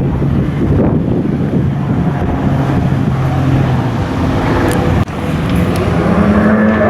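Jet ski engines running at racing speed, with wind on the microphone. About five seconds in the sound drops out abruptly, then returns with a higher engine note.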